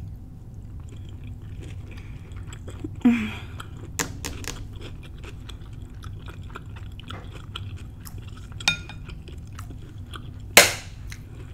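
Close-miked mouth sounds of someone chewing a soft mouthful of shrimp stir fry, with many small wet clicks and smacks. There is a louder burst about three seconds in, a short clink of a spoon on a ceramic bowl a little past eight seconds, and a sharp loud smack near the end.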